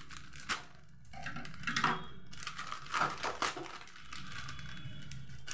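Scissors cutting through a plastic snack packet and the packet crinkling as it is opened, in several separate bursts.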